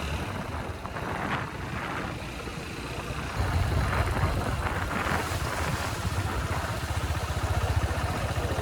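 Motorcycle engine running on the move, with wind buffeting the microphone; the engine's low pulsing gets louder and more even a few seconds in.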